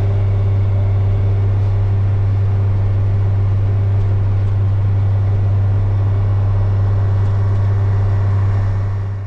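Case IH 8940 tractor engine running steadily: a loud, even low drone that holds without change and then stops abruptly near the end.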